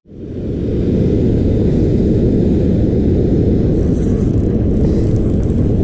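Steady low rumble of wind buffeting the action camera's microphone, rising in over the first second and then holding even.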